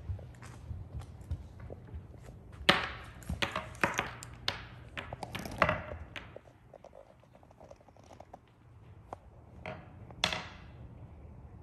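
A run of light wooden knocks and clacks from a child handling a wooden wall activity panel, bunched together around the middle, with a few scattered taps afterwards and one sharper clack near the end.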